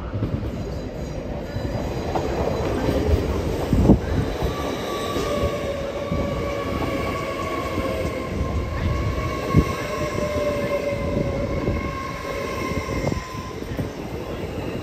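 A train moving slowly over the rails, rumbling, with a steady squeal held for several seconds in the middle and two sharp knocks, one about four seconds in and one near ten seconds.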